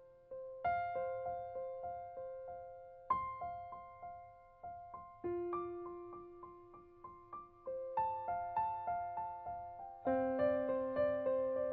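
Background piano music: a steady run of struck notes, about three a second, over held lower notes, with a new chord struck every few seconds.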